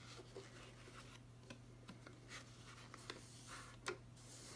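Faint rustling and light taps of fabric being handled and laid on an embroidery hoop, with a sharper click about four seconds in, over a low steady hum.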